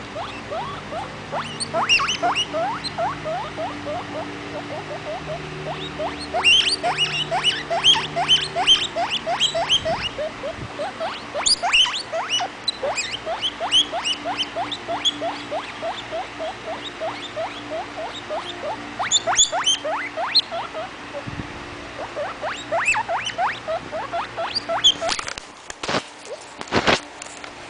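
Baby guinea pig wheeking: a long, rapid run of short, rising squeals, several a second, coming in louder bursts. A few sharp knocks sound near the end.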